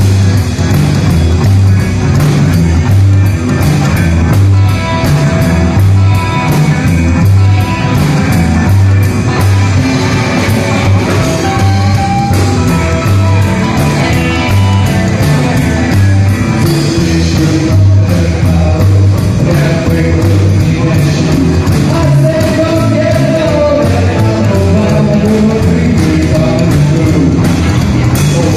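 Live rock'n'roll band playing an upbeat number: upright double bass, electric guitars and drum kit on a steady driving beat, with a male lead vocal over it.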